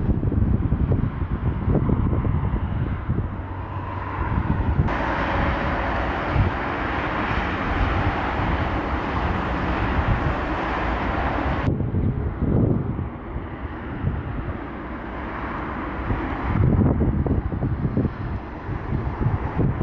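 Gusty wind rumbling on the microphone over the sound of jet airliners. For several seconds in the middle a steady jet-engine hiss comes in and cuts off abruptly.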